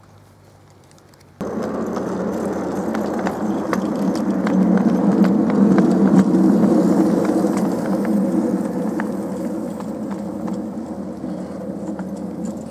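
Miniature railway train rolling past on ground-level track: a steady rumble of small wheels with light irregular clicks over the rail joints. It starts abruptly after a quiet first second or so, grows loudest as the wagons pass close, then eases as the train moves away.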